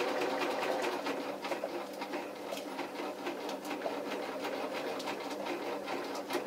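Sewing machine running steadily, its old needle punching rows of holes through thin card and greaseproof paper, giving a rapid even clicking over the motor's hum.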